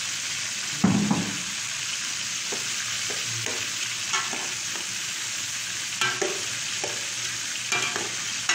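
Chicken and liver sizzling in hot oil in a large aluminium pot as strips of red bell pepper and carrot are tipped in, with a thump about a second in. A wooden spatula then stirs the pan, knocking against the pot now and then over the steady sizzle.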